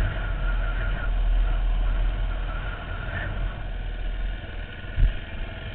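Dirt bike engine running at low speed and easing off as the bike rolls to a stop, getting quieter. A single short knock about five seconds in.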